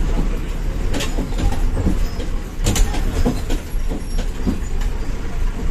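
Inside a moving bus: steady low rumble of the engine and road, with the body rattling and knocking over the road surface, the sharpest clatters about one and three seconds in.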